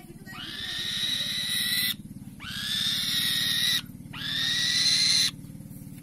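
Juvenile black-winged kite giving three long, high calls about two seconds apart, each rising quickly and then holding steady. A steady low hum runs underneath.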